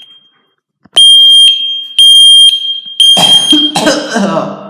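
FireAngel Wi-Safe 2 networked smoke alarm sounding its fire signal: high-pitched half-second beeps in groups of three, about a second apart, with a longer gap between groups (the temporal-three evacuation pattern). Its test will not stop. A person's voice breaks in over the beeps near the end.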